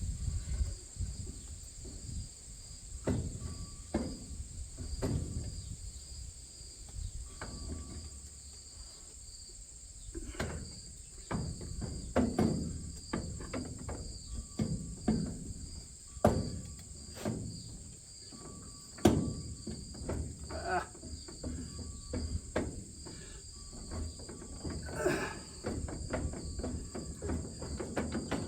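Steady insect chorus with crickets chirping in a fast pulsing trill. Over it come irregular knocks and clanks of tools and metal parts as the corn head's stalk rolls are worked into place; the sharpest clank is about two-thirds of the way through.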